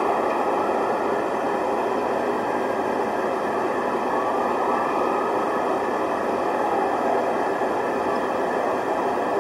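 Steady, dense din of a city street during an emergency, a continuous rushing noise with faint wavering tones rising and falling in it now and then.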